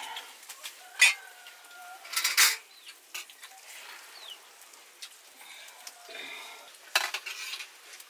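Metal utensils clinking and scraping against cookware, with a few sharp clanks. The clank about a second in rings on for about a second, like a struck metal pot.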